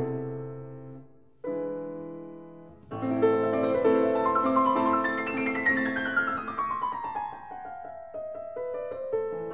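Background piano music: two chords ring and die away, then a flowing passage begins about three seconds in, with a long run of notes descending in pitch.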